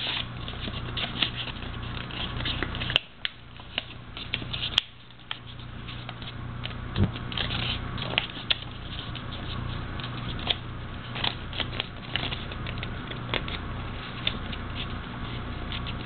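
A sheet of origami paper rustling and crinkling as it is folded and creased by hand, with many small crackles and scratches and two sharper ticks around the third and fifth seconds.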